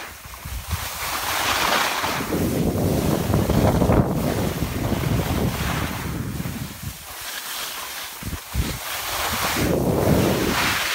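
Wind buffeting the microphone during a ski run, over the hiss and scrape of skis sliding on soft spring snow. The noise surges and eases, with a lull about seven seconds in before it builds again.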